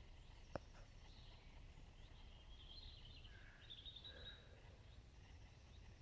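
Faint birdsong from songbirds in the forest canopy, with a clearer chirping phrase in the middle. One sharp click about half a second in, over a low steady rumble.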